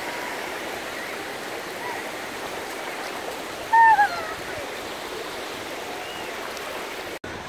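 Shallow North Sea surf washing in over flat wet sand, a steady rushing hiss. About four seconds in, one brief, loud, high-pitched cry cuts through it.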